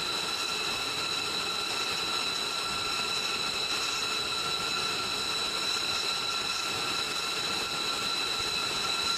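Jet engines of a B-2 Spirit stealth bomber running at taxi power: a steady jet whine, with several high tones held over an even rush of noise.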